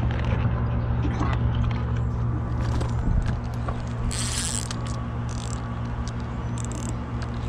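Fishing reel being cranked, its gears whirring and clicking as a hooked fish is reeled in on a bent rod, with a few brief rasps in the second half. A steady low hum runs underneath.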